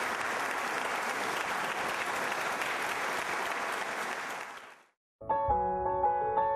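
Audience applauding, fading out about four and a half seconds in. After a moment of silence, music starts.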